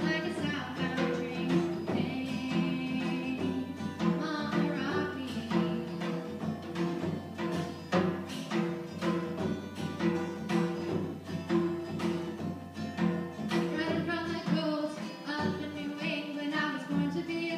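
Live singing with acoustic guitar accompaniment, a small duo performing a song.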